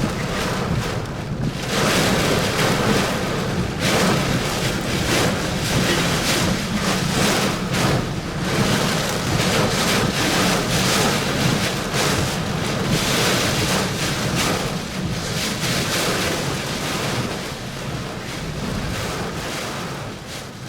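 Severe thunderstorm winds gusting hard, buffeting the microphone in surging rushes that ease off somewhat near the end.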